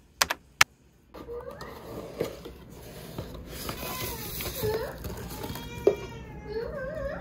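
Tissue paper rustling as it is pulled aside inside a cardboard box, after two sharp clicks near the start. A cat meows over it, in wavering, bending calls.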